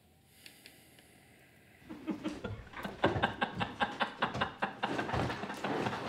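Men laughing heartily, starting about two seconds in after a hushed moment and going on in quick, repeated peals.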